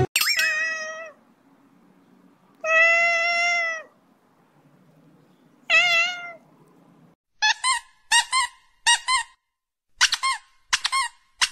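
Cat meowing: a falling meow at the start, a long steady meow a few seconds in, a wavering meow about halfway, then a run of short, high mews about three a second.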